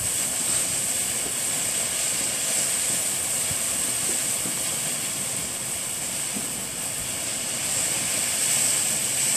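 Ground fountain firework spraying sparks: a steady, high-pitched hiss.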